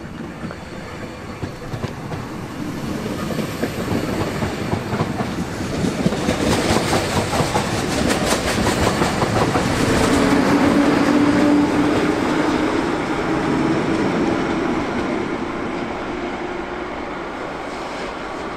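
S-Bahn push-pull train of x-Wagen coaches with a class 143 electric locomotive passing close by and pulling away, wheels clicking over the rail joints. It grows to its loudest about ten seconds in, with a steady hum as the locomotive goes by, then fades as the train recedes.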